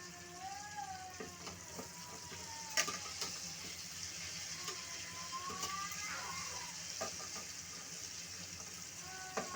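Chicken frying in oil in a pan: a steady sizzle, with a few sharp clicks of a utensil against the pan and some faint wavering tones in the background.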